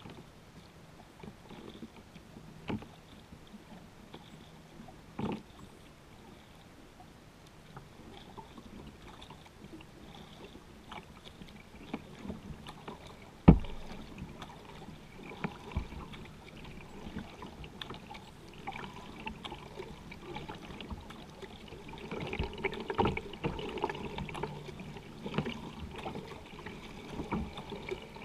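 Kayak being paddled on calm water: paddle strokes and water lapping against the hull, busier in the last few seconds, with a few sharp knocks on the kayak, the loudest about halfway through.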